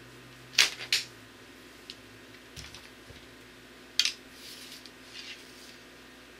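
A traditional bow shot: a sharp snap as the string is loosed, then the arrow striking the target about a third of a second later. A few lighter knocks and clicks follow, with one more sharp click about four seconds in.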